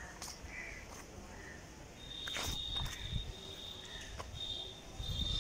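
Quiet outdoor ambience. An insect's high, thin trill sets in about two seconds in and goes on in long stretches, with a few soft footsteps.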